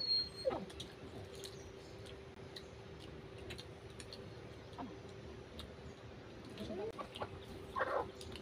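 Faint chicken clucking, a few short calls, the clearest between about 7 and 8 seconds in, over a steady low hum.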